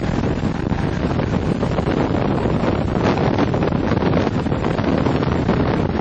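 Inside the cabin of a 2006 BMW E46 M3 at track speed: the car's straight-six engine and road noise under way, heavily overlaid by loud wind buffeting on the microphone.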